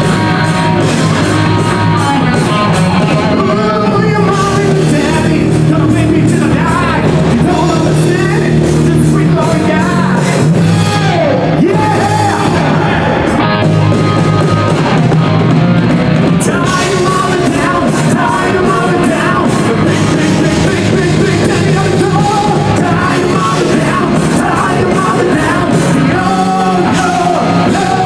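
Rock song with a singer over a full band; background music.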